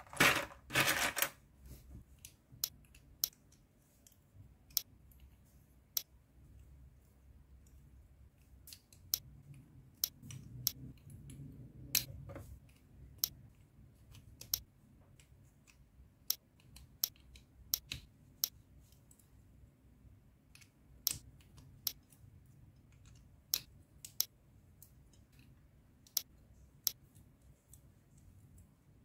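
Plastic Mathlink cubes and connector pieces clicking as they are snapped together and handled. A dense clatter of clicks in the first second or so, then sharp single snaps at irregular intervals, about one a second.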